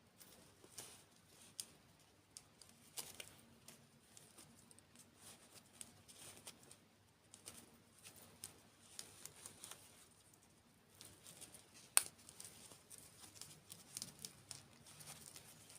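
Close-miked eating and food-handling sounds: faint irregular crunches, crackles and crinkles, with one sharper click about twelve seconds in.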